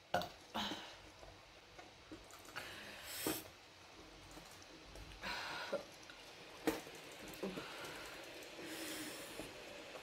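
A woman breathing quietly: several short, breathy exhales a few seconds apart, with one sharp click about two-thirds of the way through.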